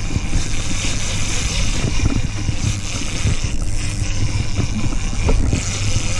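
Steady wind rumbling and hissing on the microphone on a boat at sea, over a low, even hum of the boat's outboard engine idling.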